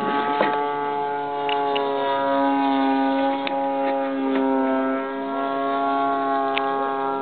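34cc gas engine of a Katana RC aerobatic plane droning steadily overhead, its pitch wavering slightly and its level swelling and easing a little, with a few faint clicks.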